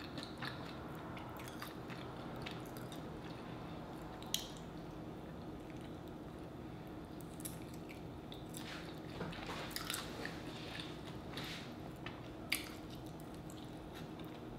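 Eating sounds: biting into and chewing a sauce-glazed chicken wing dipped in a creamy Parmesan sauce, with scattered wet mouth clicks, two sharper ones about four seconds in and near the end.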